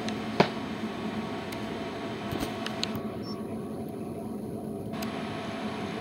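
Danube DD16 electronic tumble dryer running: a steady drone and low hum as the drum turns the load. A few light ticks and one sharp knock about half a second in.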